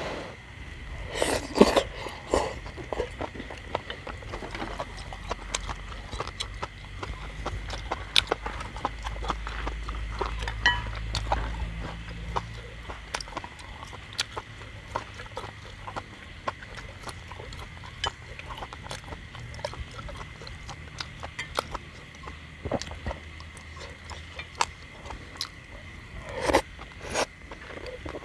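A person slurping noodles off chopsticks about a second in, then chewing and smacking his lips with many small wet clicks, and another slurp near the end.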